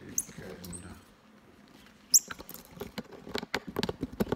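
Squirrel monkey giving short high-pitched squeaky chirps: a rising one near the start and a sharp pair about two seconds in. These are followed by a quick run of clicks and rustling in the last second and a half.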